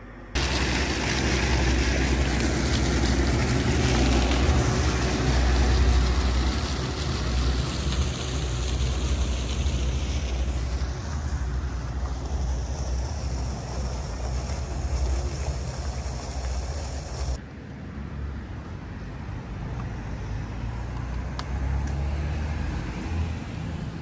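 Outdoor town street ambience: a steady rumbling rush of noise with no clear single source. It starts abruptly and drops in level about two-thirds of the way through.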